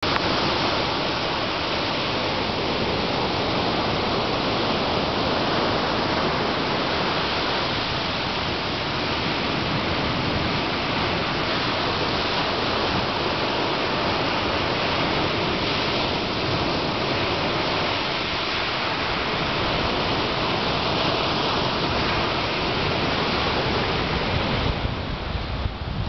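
Ocean surf breaking and washing up a sand beach: a steady rushing of white water. Near the end, wind begins buffeting the microphone.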